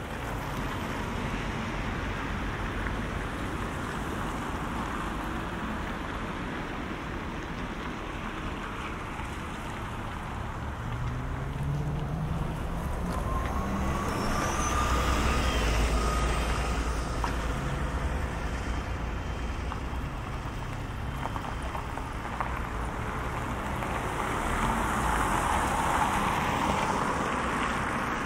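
Road traffic going by, with vehicles passing close twice: about halfway through, one pulls away with a rising engine note and whine, and another swells past near the end.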